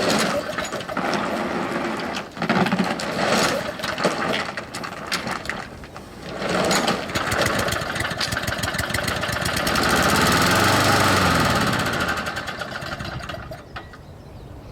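Husqvarna all-wheel-drive walk-behind mower's small gas engine starting and running. It runs unevenly for the first few seconds, then steadier and louder, and drops off near the end.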